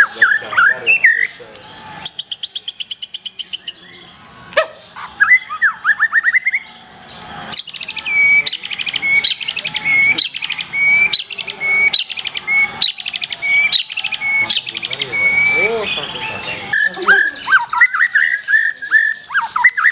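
Black-tailed white-rumped shama singing a varied song. A fast high trill about two seconds in is followed by rising whistled glides, then a long run of repeated upswept notes about two a second, with sharp ticks between phrases.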